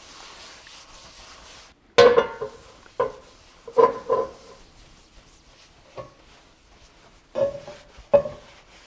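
Paper towel wiping oil into hot cast iron skillets: a soft rub, then from about two seconds in about seven short, pitched squeaks with the strokes. How the towel sounds on each pan tells how smooth its cooking surface is.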